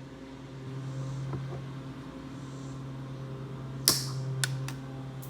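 A steady low electrical-sounding hum, with a sharp knock about four seconds in followed by three lighter clicks.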